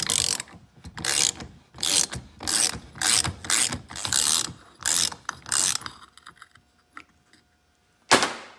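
Socket ratchet loosening a 27 mm nut, giving repeated quick strokes of ratchet clicking, a few each second, that stop about six seconds in. One sharp knock comes near the end.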